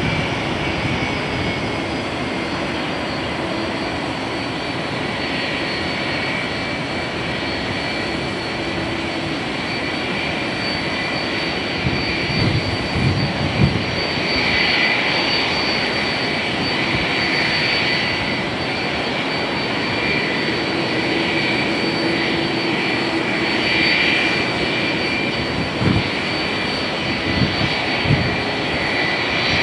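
Boeing 777's twin jet engines running at low taxi power, a steady rushing hum with a high whine on top. A few low thumps come about twelve seconds in and again near the end.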